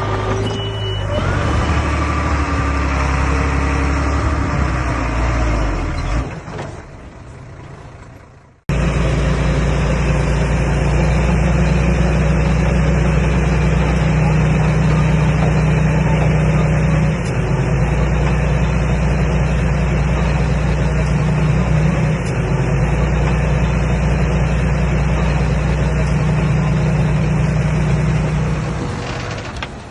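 Komatsu D21A bulldozer's diesel engine running steadily. About six seconds in the sound fades away, then cuts back in abruptly a couple of seconds later.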